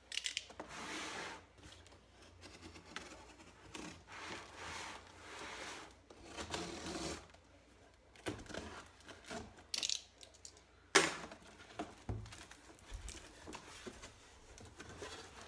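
Utility knife slicing through packing tape and cardboard on a shipping box in a series of scraping strokes, then the cardboard flaps pulled open. A single sharp snap about eleven seconds in is the loudest sound.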